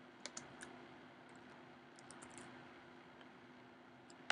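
Faint computer keyboard taps and mouse clicks: a few near the start, a quick little cluster about two seconds in and one more at the end, over a faint steady hum.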